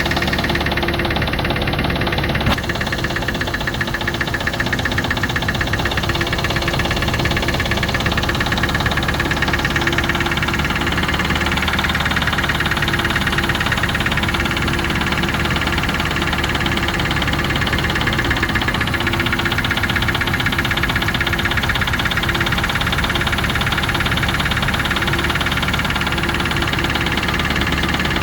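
Range Rover Classic's 3.5 V8 engine idling steadily with a fast, regular knock coming from inside the engine, which the owner calls engine knock.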